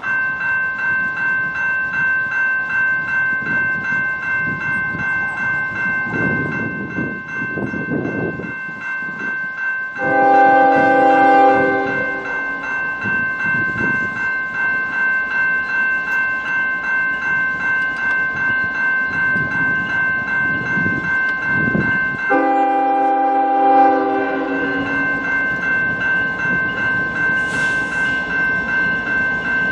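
Railway crossing warning bell ringing steadily at about two strikes a second, while the approaching CN ES44DC diesel locomotive sounds its air horn in two long blasts, about ten seconds in and again about twenty-two seconds in, over the low rumble of the train.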